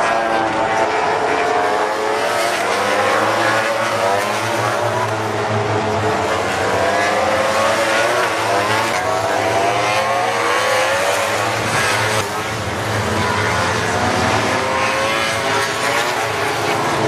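Several MotoGP race bikes' four-cylinder engines running at high revs as they pass one after another, their pitches rising and falling through gear changes and overlapping without a break. There is a brief lull about twelve seconds in.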